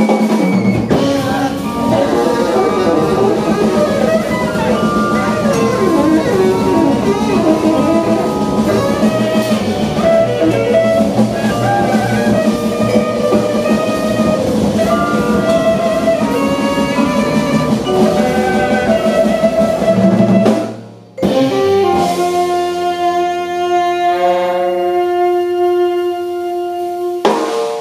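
Live jazz quintet of saxophone, accordion, vibraphone, upright bass and drums playing a busy, driving passage that stops abruptly about twenty seconds in. After a brief gap the band holds a sustained final chord that fades away near the end.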